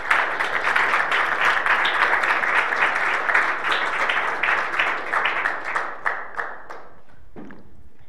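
Audience applauding: dense clapping that thins out and dies away about six to seven seconds in.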